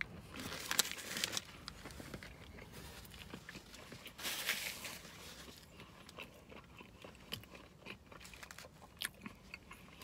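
Chewing a mouthful of biscuit breakfast sandwich close to the microphone: soft, irregular crunching and mouth clicks, with a louder stretch about a second in and another around four seconds in.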